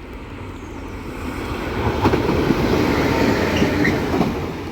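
Network Rail rail grinding train DR79262 passing through a station without stopping: a rumble of engine and wheels on rail that builds to its loudest in the middle of the pass and eases off near the end.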